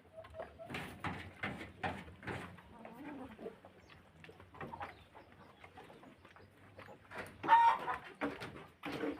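Kienyeji (indigenous free-range) chickens clucking in a series of short calls, with the loudest call about three-quarters of the way through.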